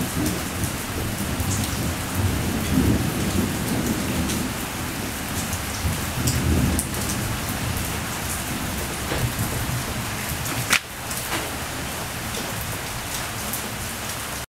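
Steady rain, with a heavier low rumbling for a few seconds in the first half and a single sharp click about eleven seconds in.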